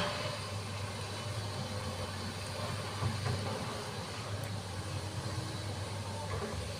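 SANY excavator's diesel engine running steadily with a low drone.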